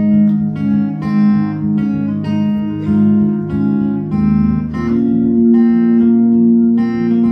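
Live band music with no singing: a guitar plays an instrumental line of plucked notes, then holds one long note in the second half.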